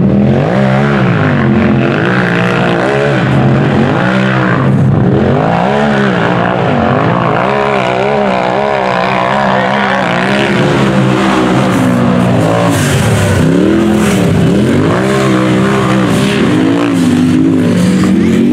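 Rock bouncer race buggy's engine revving hard over and over as it climbs a rocky hill, the pitch rising and falling about once a second.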